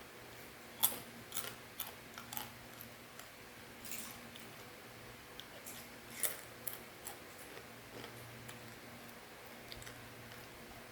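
Scattered crisp clicks and crunches from the crunchy fried macaroni snack, irregular, with the loudest about a second in and about six seconds in.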